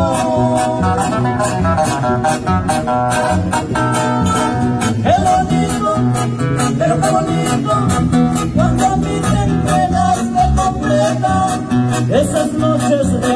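Live Mexican regional band playing: acoustic guitars strummed over a steady drum beat, with men singing.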